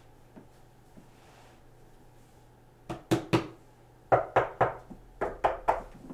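Sharp knocks and bumps from a subwoofer cabinet being handled and tipped up by hand: three about halfway through, then a quick run of about eight over the next two seconds. A faint steady hum lies underneath.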